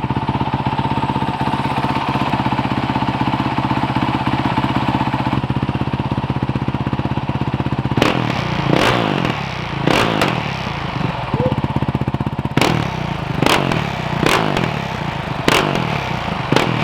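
Honda CRF450L's 450cc single-cylinder four-stroke engine running through a new FMF stainless Megabomb header and Q4 slip-on exhaust: it idles steadily, then about halfway in it is blipped about eight times, each a quick, sharp rise in revs that drops back to idle.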